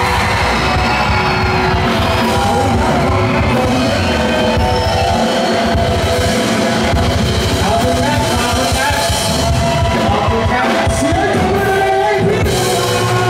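Live rock band playing, with electric guitars, bass guitar and a drum kit under a male singer.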